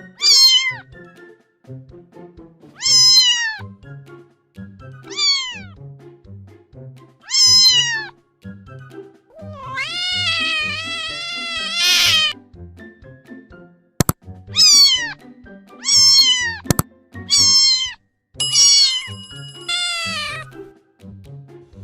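Kitten meowing again and again: about nine short meows that fall in pitch, with one long drawn-out meow midway, over background music with a steady beat.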